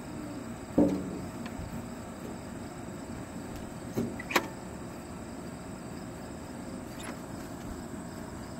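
Steady low background noise with a faint high tone, a short faint sound about a second in, and a few sharp clicks around four seconds and again near seven seconds.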